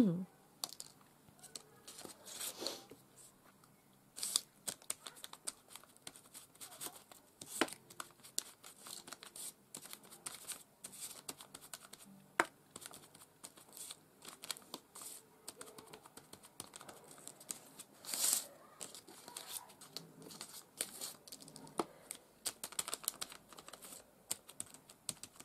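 Ink sponge dabbed and tapped again and again on die-cut card roses: irregular soft scratchy taps, with a few louder paper rustles as the pieces are moved.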